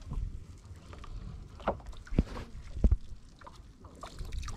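A cast net being hauled up out of the water over the side of a small boat: a few short knocks and thumps against the hull, the two loudest about two and three seconds in, with water dripping off the net.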